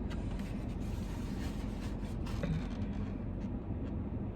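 Faint eating sounds: a few light clicks and scrapes of utensils on a take-out plate, over a steady low background hum.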